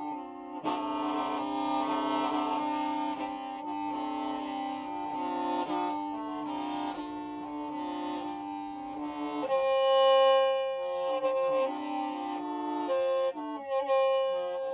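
Hmong qeej, a free-reed bamboo mouth organ, playing with several pipes sounding at once in sustained chords that change from note to note. About ten seconds in, the lower notes drop out and higher notes take over.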